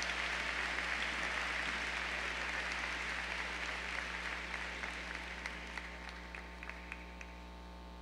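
A large audience applauding, the applause slowly dying away, with a few last scattered claps near the end.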